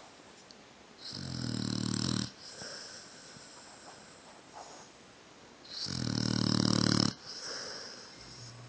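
Pit bull snoring: two long, loud snores about five seconds apart, each growing louder over a second or so and then cutting off sharply, each followed by a softer breath.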